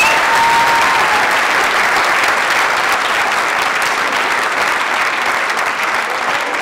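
A large seated audience applauding, with a brief cheer at the start; the clapping slowly dies down.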